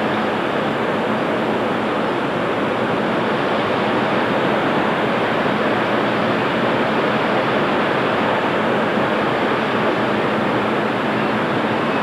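Ocean surf, a steady, even rush of breaking waves with no rise and fall.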